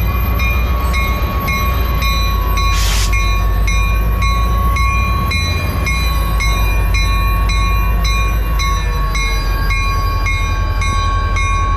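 EMD SD40 diesel locomotive's 16-cylinder two-stroke engine idling with a steady low rumble. Over it a railroad crossing bell rings about three strikes a second, and a short hiss of air comes about three seconds in.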